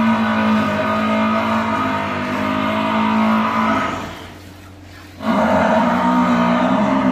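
Water buffalo lowing: a long, drawn-out, steady call that fades out about four seconds in, then a second long call starting about five seconds in.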